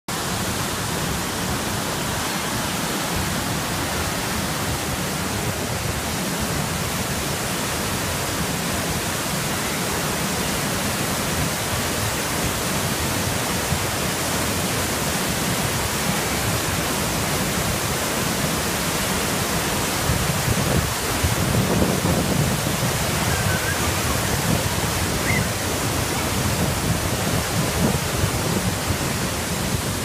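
Floodwater in a typhoon-swollen river rushing steadily through white rapids, a continuous full-bodied rush of water. It grows a little louder and deeper about two-thirds of the way in.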